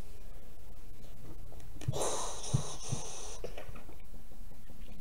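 Steady low hum and hiss of the microphone's noise floor, with one breathy exhale close to the microphone about two seconds in and a few soft knocks around it.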